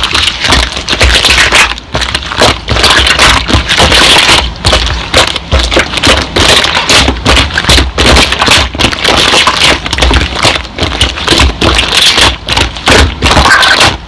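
Slime being pressed and stretched by hand, giving a dense run of crackling and popping, over background music.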